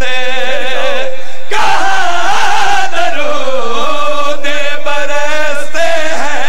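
A zakir chanting a line of Punjabi devotional verse into a microphone, holding long, wavering sung notes in two or three phrases, loud over the PA.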